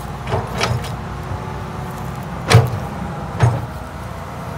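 Tracked excavator's diesel engine running steadily while it digs through topsoil, with four sharp clanks from the bucket and arm. The loudest clank comes about two and a half seconds in.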